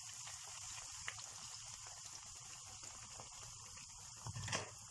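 Eggplant cubes sizzling in hot frying oil: a faint, steady crackling hiss. About four and a half seconds in, a single brief knock.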